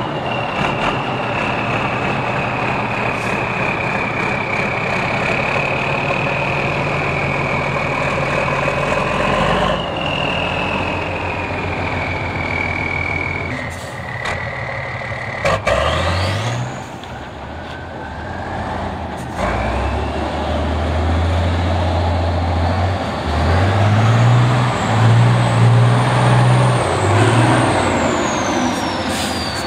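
Heavy off-road trial truck engine running under load, revving up several times as the truck drives through the mud, with a high whistle gliding up and down above the engine note.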